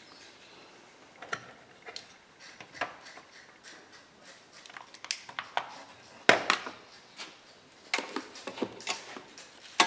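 Metal hand tools clinking and clicking as a wrench is fitted and turned on a small bolt on an ATV frame: about ten irregular sharp clicks and knocks, the loudest about six seconds in.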